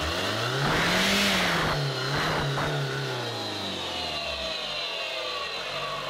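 Old Mercedes Vito van's diesel engine revved by hand at the throttle linkage: the revs climb sharply to a peak about a second in with a rush of hiss, dip, rise again briefly, then fall back to a steady idle.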